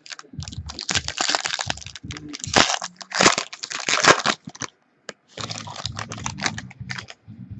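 Crinkling and rustling of a trading-card pack's wrapper being opened and handled, with small clicks of cards, in two spells broken by a short pause about four and a half seconds in.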